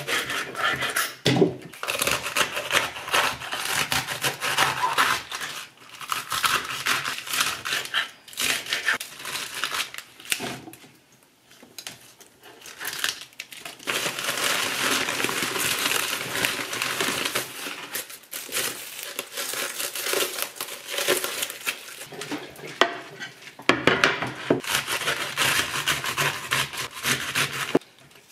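Crisp lettuce being cut with a knife and pulled apart on a wooden cutting board, the leaves crunching and snapping. After a short lull a bag wrapped around a napa cabbage crinkles steadily as it is opened, and for the last few seconds the napa cabbage leaves are cut with a knife on the board.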